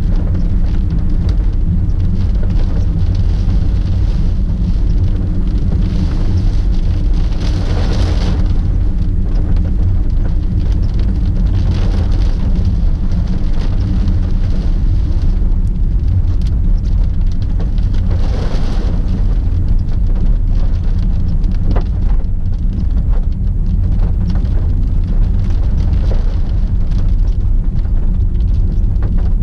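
Typhoon rain and wind on a first-generation Honda Freed as it drives: a loud, steady low rumble of road and wind noise, with rain hitting the car. There are surges of spray hiss about 6 seconds in and again around 18 seconds, and scattered sharp drop ticks in the second half.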